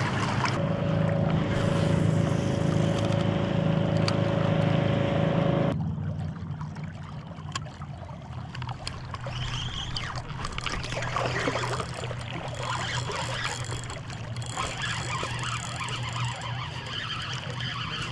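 River current rushing and gurgling close to the microphone, with wind buffeting it; about six seconds in the sound cuts suddenly to a quieter, steadier rush of the river.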